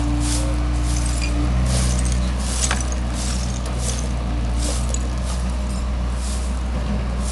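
Excavator's diesel engine running steadily, with irregular clinks and scrapes on top, about one or two a second.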